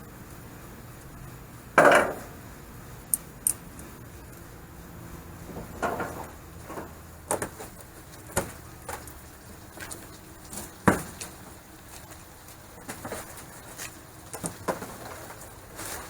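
Scattered knocks and clicks at irregular intervals, with one louder thump about two seconds in.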